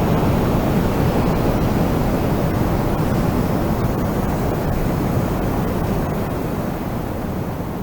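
Strong wind blowing as a steady, deep rushing noise that slowly fades near the end.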